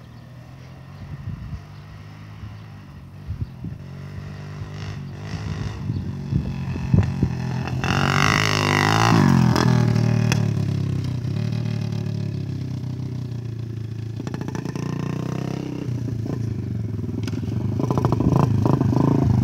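Small Honda kids' dirt bike engine revving. Its note rises and falls with the throttle, growing louder as the bike comes closer, loudest about halfway through, then easing and building again near the end.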